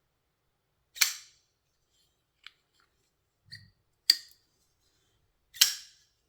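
Titanium-handled TWOSUN TS328 flipper knife being flipped open and snapped shut: three sharp metallic snaps, each with a brief ting of ringing, and a couple of faint ticks between them.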